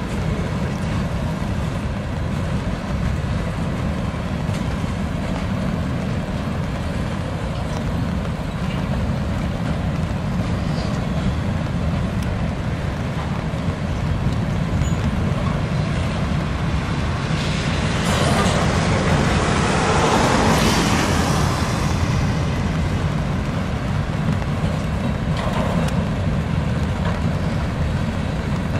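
Freight train of covered hopper cars rolling past at close range: a steady low rumble of steel wheels on the rails. About two-thirds of the way through it swells briefly louder with a rushing hiss.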